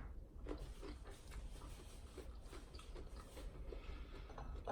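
Faint chewing of food close to the microphone, soft and regular at about two to three chews a second.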